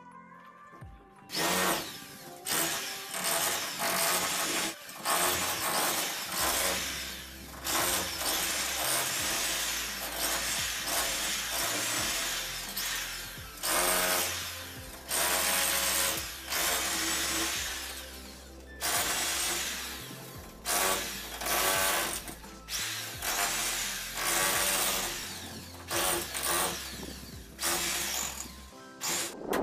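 Electric wall cutter (angle-grinder type wall chaser) cutting a groove into brick, in repeated cuts of a second or two, its motor whine rising and falling as the blade bites and eases off. Background music with low bass notes plays underneath.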